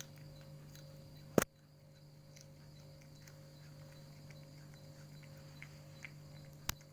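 Cat chewing a raw long bean: faint, scattered crunching clicks over a steady low hum. A sharp loud knock comes about a second and a half in, and another near the end.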